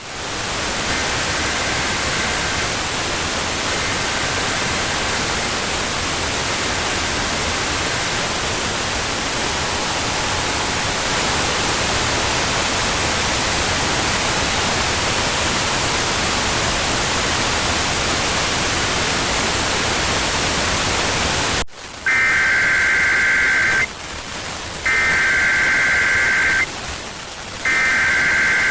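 NOAA Weather Radio reception: a steady hiss of radio static. In the first eight seconds three faint bursts of two-tone data are buried under the hiss. About 22 seconds in the static cuts off and three loud bursts of EAS SAME header data tones play, each about a second and a half long and a second apart.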